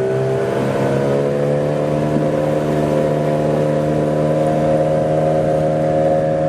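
Small fishing boat's engine running under steady throttle, its pitch rising slightly in the first second and then holding even.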